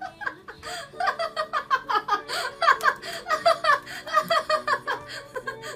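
A person laughing in a quick run of short giggles that starts about a second in and stops shortly before the end, over faint background music.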